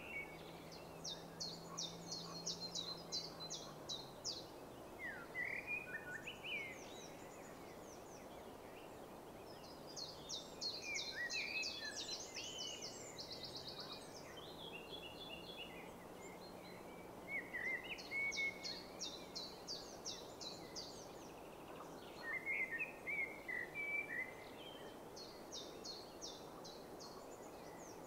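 Songbirds singing: about four phrases of a fast, high trill, with lower chirps between them, over a steady background hiss.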